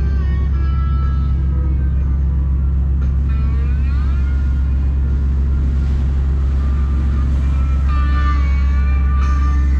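Steady low engine hum under a boombox playing rock guitar faintly. The guitar grows louder near the end.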